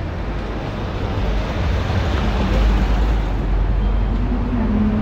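Street traffic with a heavy vehicle passing close by: a low rumble and road noise that swell to a peak about midway, with a low engine hum near the end.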